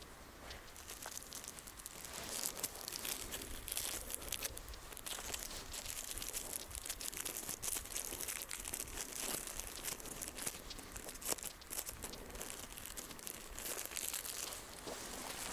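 Snow crunching and crackling, a steady dense run of small crisp clicks.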